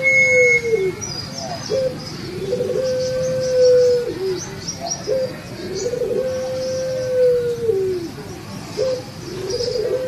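Caged puter pelung, a long-cooing Barbary dove, cooing: each coo a short rising note then a long held note that drops away at the end, repeated about every three and a half seconds. Faint high chirping of other small birds runs underneath.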